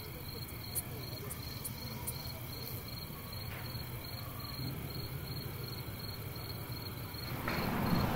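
A night insect chirping in an even high-pitched pulse, about three chirps a second, over a low hum of town traffic; near the end the traffic noise grows louder.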